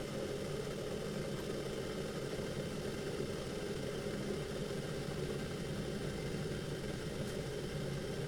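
Electric kettle heating water close to the boil, giving a steady low rushing noise.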